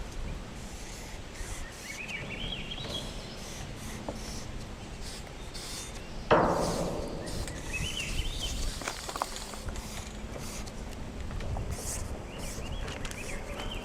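Outdoor ambience with a bird's short chirping trills three times, and one sudden loud knock about six seconds in that rings down over about a second.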